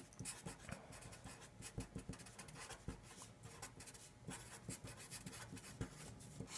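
Black felt-tip marker writing on paper: a quick run of short, faint pen strokes as words are lettered.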